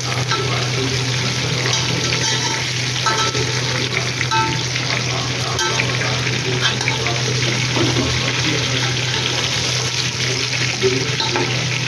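Food frying in hot oil in a pan, a steady crackling sizzle with the scrape of stirring, over a steady low hum.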